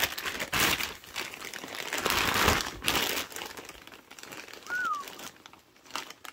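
Clear plastic bag crinkling and rustling as it is handled and a carburettor is pulled out of it, loudest in the first three seconds. One short falling chirp about five seconds in.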